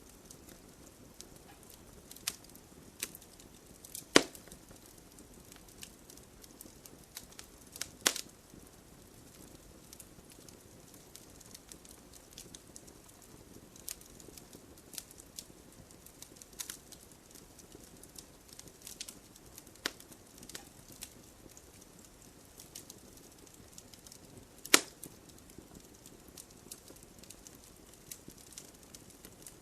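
Wood fire burning in a fireplace: a low steady hiss with scattered crackles, and three loud pops from the burning logs, about four seconds in, at eight seconds and near the end.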